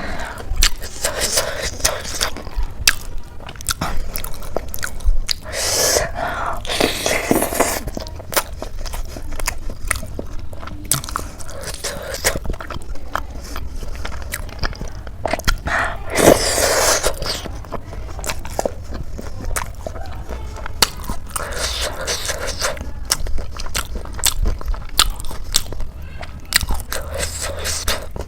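A person chewing and biting crisp khasta samosa with ghugni close to the microphone: many small crunches and wet chewing, with two longer, louder stretches of crunching about six and sixteen seconds in.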